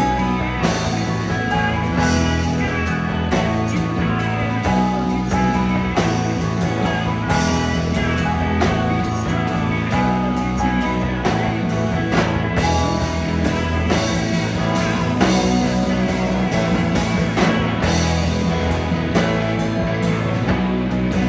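Live rock band playing: electric guitars, electric bass and a drum kit, loud and continuous.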